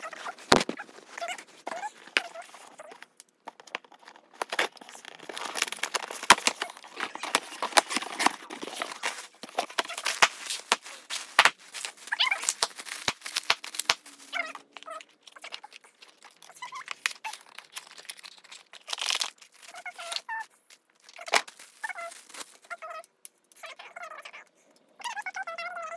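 Clear plastic packaging crinkling and rustling as a tripod is pulled out of its bag and unwrapped, with bursts of rustling and a few sharper crackles. The rustling is heaviest in the first half and thins out later.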